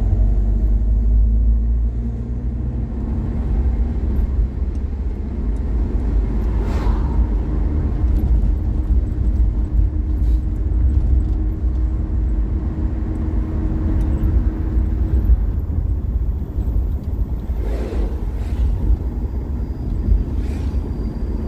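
Car interior road noise while driving: a steady low rumble of the engine and tyres on the asphalt, with a faint engine hum.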